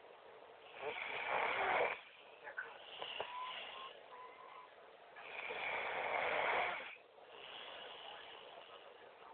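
A person snoring in sleep: two loud snores, each over a second long, about four and a half seconds apart, with quieter breaths in between.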